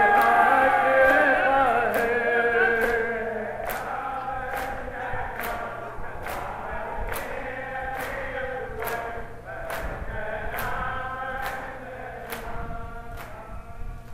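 A large crowd of men chanting a nauha (Shia mourning lament) together, loudest in the first few seconds, with the whole crowd's matam, hands beating on chests in unison, giving a sharp slap a little more than once a second.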